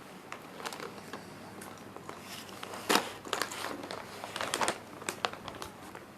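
Crispy chips being bitten and chewed close to the microphone: irregular sharp crunches and crackles, the loudest about three seconds in, and another cluster a little later.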